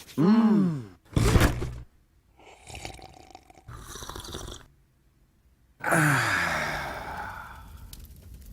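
A string of short, separate sounds and vocal noises: a pitched sound that rises and falls at the start, a loud sudden burst about a second in, some hissing noise, then a long falling groan-like sound with breathy noise from about six seconds in, fading away.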